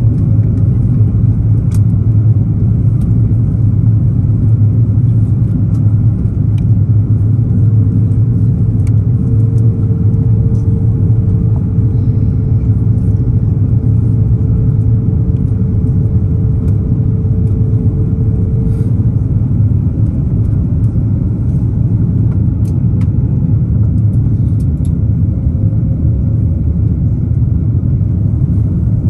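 Steady low rumble of airliner cabin noise, airflow and the Airbus A330-900's Rolls-Royce Trent 7000 engines, heard from a window seat over the wing on descent. A faint steady hum joins in from about eight seconds in and fades out at about nineteen seconds.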